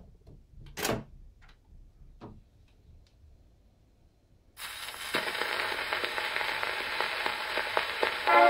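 A few light knocks as the tone arm of an HMV 157 acoustic gramophone is handled, then, about halfway through, the needle is set onto the spinning 78 rpm shellac record and the lead-in groove gives a steady hiss with crackle and clicks.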